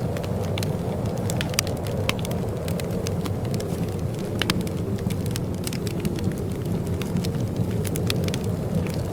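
Wood fire crackling in a fireplace: a steady low rumble of burning with frequent sharp, irregular pops and snaps.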